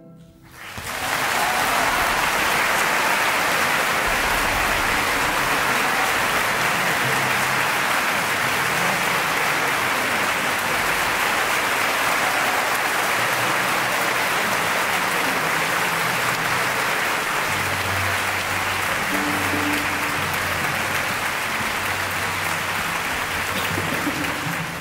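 A large theatre audience applauding, breaking out about a second in as the last orchestral chord fades. The clapping stays dense and steady and stops abruptly at the end.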